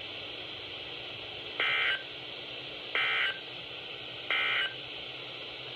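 Emergency Alert System SAME end-of-message data bursts: three short, identical bursts of two-tone digital screech about 1.3 seconds apart, marking the end of the warning. They play over a steady hiss.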